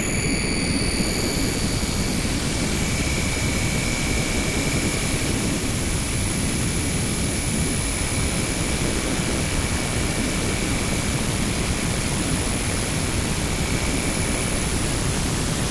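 Electronic sound-art performance played from laptops: a dense, steady, low noise drone like a jet engine's roar, with faint thin high tones held over it, one of which fades out near the end.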